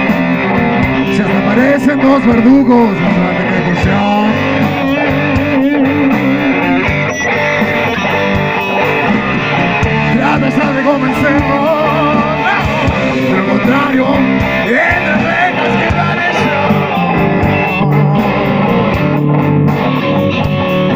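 Live blues-rock band playing an instrumental passage: electric guitar with bent, wavering notes over bass and a drum kit.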